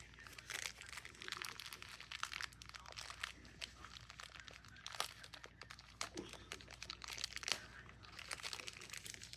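Small plastic blind bag crinkling and crackling in the hands as it is worked open to get at the figure inside, a run of faint, irregular crackles.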